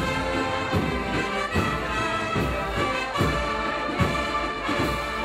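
A brass band with drums plays a slow processional march: sustained brass chords over a steady drum beat that falls about every 0.8 seconds.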